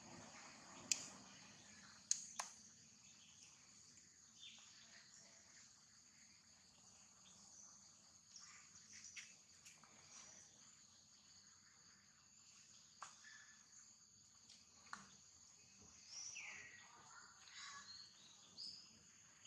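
Faint outdoor ambience: a steady, high-pitched insect chorus, with a few sharp clicks in the first couple of seconds and several short chirping calls near the end.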